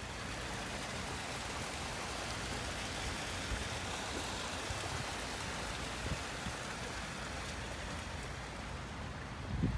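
Steady hiss and splash of water falling over the stones of a small rock-garden waterfall, a little brighter around the middle.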